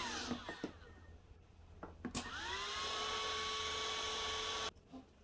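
Heat gun blower whining as it spins down, then clicked back on about two seconds in, its whine rising to a steady pitch over a rushing hiss before it is switched off suddenly near the end.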